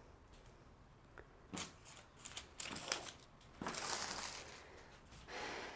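Pattern paper rustling and sliding as hands smooth a sheet into place over other paper pieces: a few short scrapes, then a longer rustle a little before four seconds in and another just before the end.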